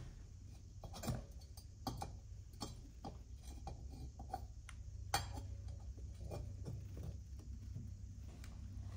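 Light clicks and taps of metal engine parts being handled during a piston and cylinder fitting, with a sharper click about a second in and another about five seconds in, over a steady low hum.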